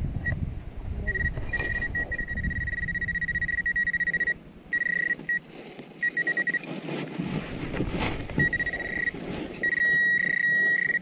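Garrett Pro-Pointer II pinpointer sounding its high-pitched buzzing alert as it is probed through the soil of a dug hole. The rapid beeps run together into a tone that breaks off and restarts several times, then holds solid and loudest near the end as the tip closes on a metal target. Wind noise rumbles on the microphone underneath.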